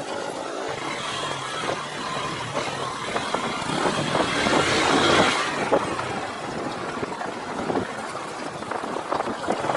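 A motorcycle engine running under steady wind and road noise while riding, louder for a stretch about halfway through.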